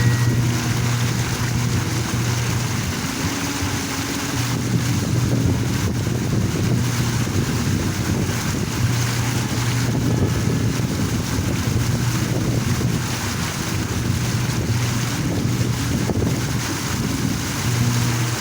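Park water fountain splashing steadily, with wind buffeting the microphone and a low hum that comes and goes every second or two.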